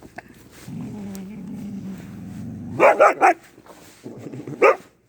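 A puppy growling steadily for about two seconds, then giving three short, loud barks and one more a little later, while it holds a cat in its mouth.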